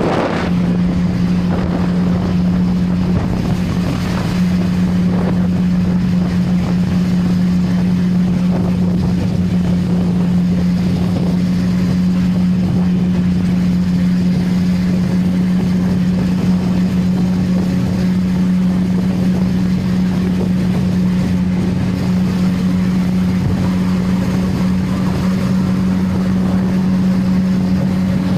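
CFMoto 675NK motorcycle's inline three-cylinder engine with stock exhaust, running at a steady pitch while riding, with wind buffeting the microphone.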